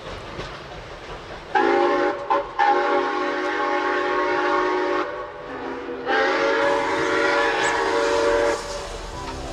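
Steam locomotive whistle sounding two long blasts, several tones at once; the first blast breaks twice just after it starts, and the second follows about a second after the first ends.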